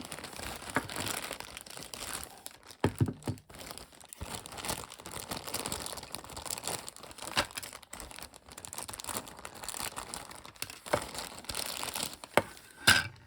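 Plastic packaging crinkling and tearing as figure parts are unwrapped by hand, with scattered sharp clicks and knocks, the loudest near the end.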